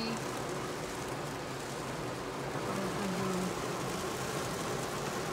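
Heavy rain pelting the car's roof and windshield, heard from inside the cabin as a steady, even hiss.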